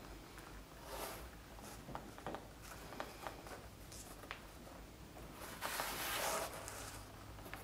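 Hands working a stiff leather saddle seat over the padded seat and horn of a western saddle, the leather rubbing and scuffing against leather with scattered light taps and clicks. The longest and loudest scuff comes about six seconds in.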